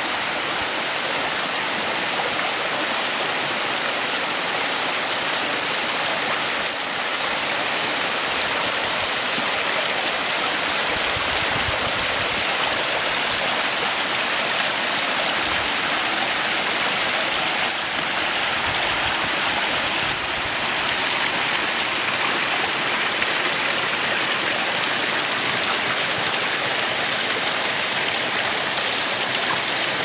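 Small rocky mountain creek cascading over boulders: a steady sound of running, splashing water.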